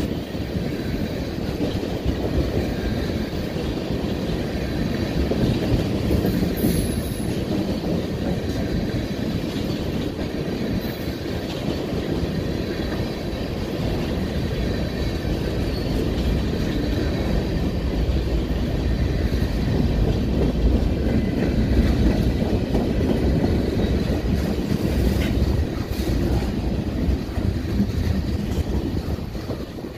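Freight cars of a manifest train, tank cars then gondolas, rolling past on curved track: a steady rumble of steel wheels on rail with clickety-clack over the rail joints and a faint wheel squeal. The sound falls away near the end as the last cars pass.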